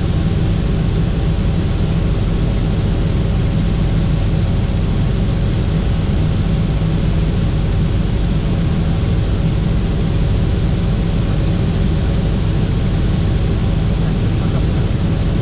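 Helicopter in flight: steady, loud rotor and engine noise, a low rumble with a thin high whine above it.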